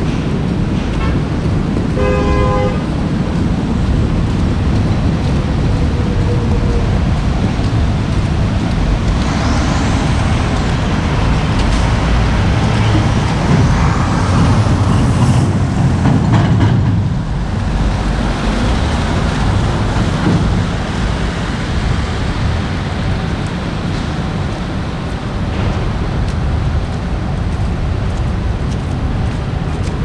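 Road traffic of cars and trucks driving on wet, slushy streets, with a steady heavy rumble. A car horn toots briefly about two seconds in, and the traffic grows louder from about nine seconds in to about seventeen seconds in as vehicles pass close by.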